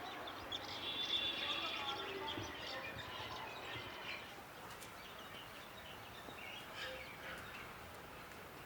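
Urban night ambience: a steady city background din with faint distant voices and short bird chirps, busiest in the first four seconds and a little quieter after.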